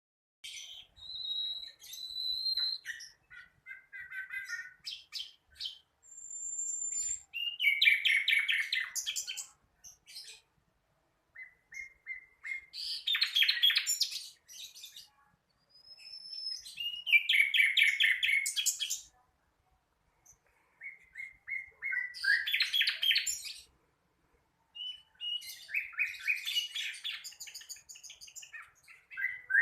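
A sikatan londo flycatcher singing: about six bursts of rapid chirps and trills, each lasting a second or two with short pauses between, and a few thin high whistles. It is a young bird still learning its song.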